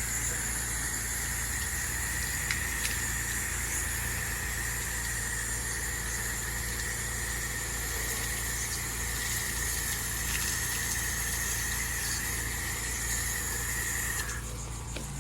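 Gas-engine pressure washer running steadily, its engine humming under a constant high whine and hiss from the spray. The whine stops shortly before the end.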